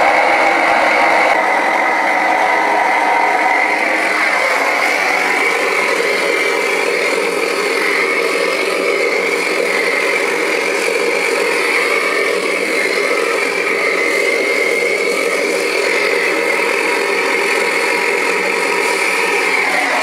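Gas burner firing into a small crucible furnace, a loud steady rush of flame with a high whistling tone running through it.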